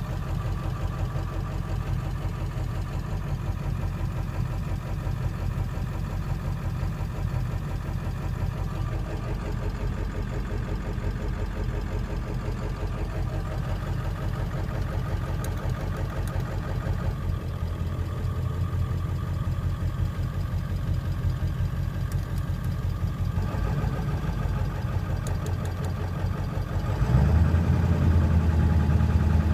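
Engine idling roughly, with a steady, uneven pulsing. Near the end it gets louder and deeper and holds there.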